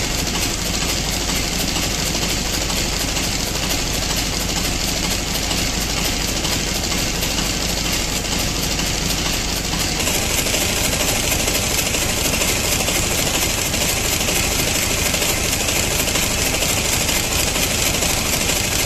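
Vintage Dutch stationary diesel engine running steadily, with a fast, even knocking beat. About halfway through, the sound shifts to a brighter, hissier tone.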